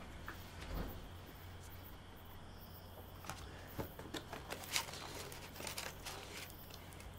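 Soft rustling and small crinkling sounds of food being handled and eaten, over a faint low room hum. The sounds come in a cluster of short clicks and rustles in the second half.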